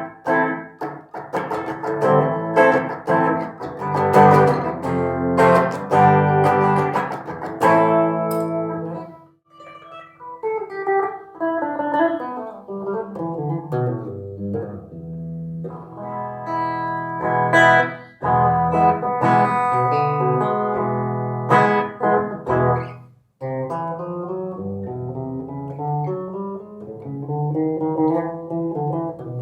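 Kramer Baretta Special electric guitar played through a Mesa Boogie Mini Rectifier amplifier: runs of picked notes and chords, with two short breaks about a third and three quarters of the way through.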